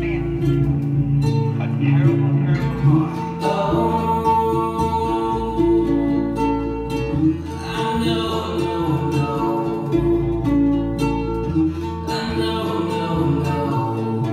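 Playback of a mellow song with guitars and a singing voice, recorded with a lot of natural room reverb.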